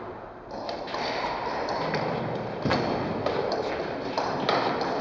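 Table tennis rally: the celluloid ball clicking off the rackets and the table again and again at an uneven pace. Steady room noise from the hall runs underneath.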